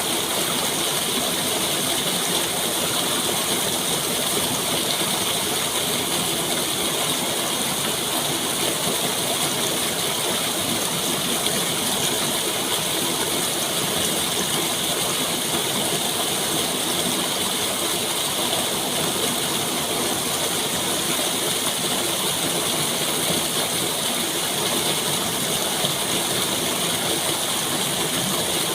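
Steady rushing water, an even unbroken noise that holds at one level throughout.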